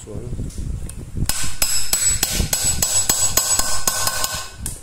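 Rapid metal-on-metal tapping, like a hammer striking ringing metal, about five strikes a second, starting a little over a second in and stopping near the end.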